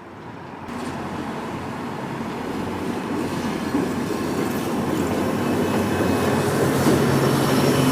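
MBTA commuter trains pulling out, their wheels rolling and rumbling over the rails with a steady low diesel hum, growing steadily louder.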